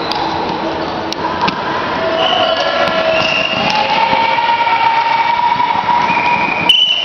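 A few sharp slaps of a peteca struck by hand in the first second and a half. From about two seconds in, long steady tones at several pitches take over as the loudest sound and cut off abruptly near the end.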